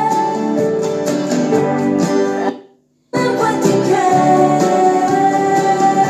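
Pop music with singing and guitar playing through a Hitachi TRK-8240RM radio cassette boombox, fed from a tablet. The song drops away about two and a half seconds in, and after a moment of silence a different song starts abruptly.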